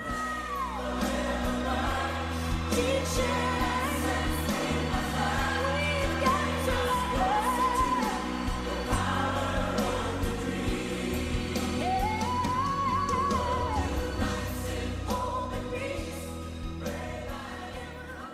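Background music: a song with singing, over a steady bass line and beat.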